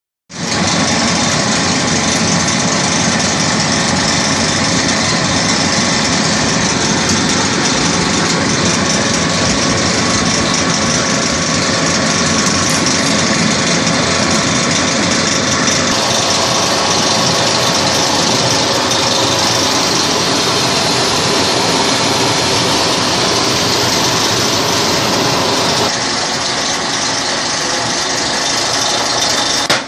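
Steady, loud running noise of workshop machinery, like a motor running with no strikes or rhythm. Its character shifts abruptly about halfway through and again near the end.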